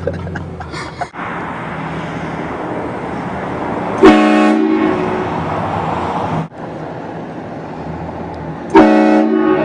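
Vehicle-mounted train horn blasting twice, a loud multi-tone chord about four seconds in and again near the end, over a steady rushing noise.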